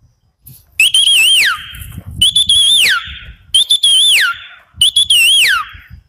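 A man whistles an imitation of a red-wattled lapwing's call through his hand. There are four shrill calls about a second and a half apart, each a wavering high note that slides steeply down.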